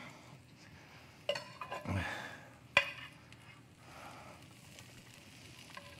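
Light clinks and knocks of a metal pan and utensils against a plate as vegetables are spooned out, with one sharp clink nearly three seconds in.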